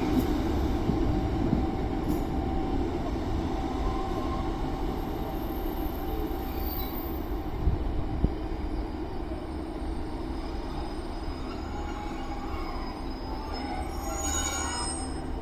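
Two coupled Class 150 Sprinter diesel multiple units running, a steady low noise that slowly fades. Near the end comes a brief cluster of high, wavering squealing tones.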